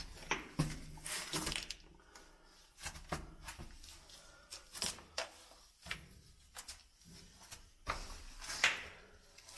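Irregular scuffs, clicks and rustles of a person clambering over the clay and rock of a cave floor, with a few short breaths. The loudest bursts come about a second in and near the end.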